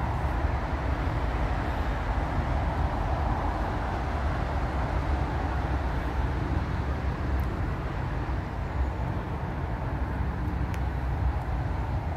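Steady, continuous road traffic noise from a dual carriageway, heaviest in the low rumble.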